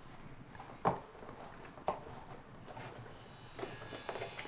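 Two sharp clicks about a second apart, then a few lighter knocks and a faint steady whine near the end: metal parts and tools being handled on a bicycle under assembly.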